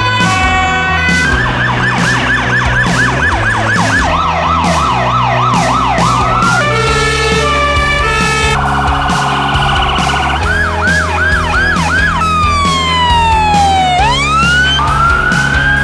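A rapid succession of different emergency vehicle sirens, cut one after another: steady stepped two-tones, fast yelps, a warble, and a long falling wail that swings back up near the end. They play over background music with a steady beat.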